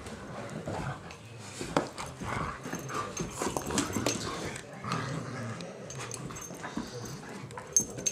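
A German shepherd and a long-haired black dog play-wrestling at close range: scuffling and short dog vocal sounds, with scattered clicks and knocks.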